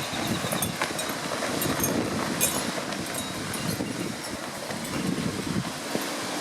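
Strong, steady wind blowing and buffeting the microphone with a low, fluttering rumble, with light clicks and rattles now and then.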